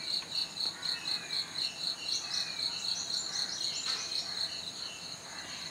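Crickets chirping: a steady, rapidly pulsing high trill, with scattered short bird chirps over it.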